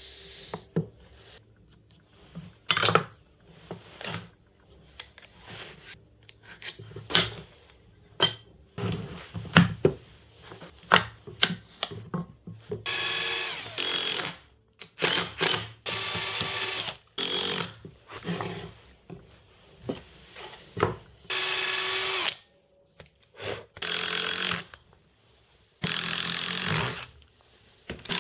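Plywood blocks and steel hinges knocking and clunking as they are handled on a workbench, then a cordless drill/driver running in about eight short bursts of a second or so each, driving screws through steel door hinges into laminated birch plywood.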